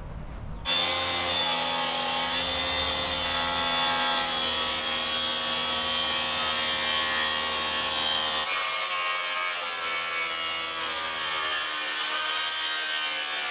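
Makita DSP600 cordless plunge track saw running along its guide rail and cutting through a wooden board, a steady motor whine over the hiss of the blade in the wood. It starts abruptly about a second in, and its tone shifts about two-thirds of the way through.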